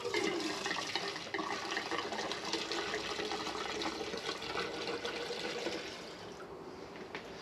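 Gasoline being poured into the old truck's fuel canister, a steady pour that tapers off about six seconds in.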